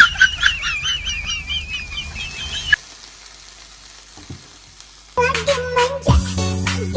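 A high warbling tone, wavering up and down several times a second over a hiss, cuts off sharply just under three seconds in. A quiet stretch with a few faint ticks follows, and background music with a steady beat starts about five seconds in.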